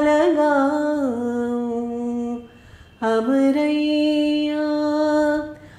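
A woman singing a folk song unaccompanied. She holds two long, drawn-out phrases, the first ending on the word "lagaun", with a short breath between them about halfway through.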